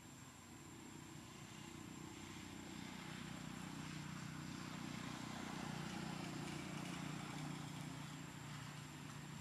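A faint, low engine hum of a distant motor vehicle that swells over the first several seconds and eases slightly near the end.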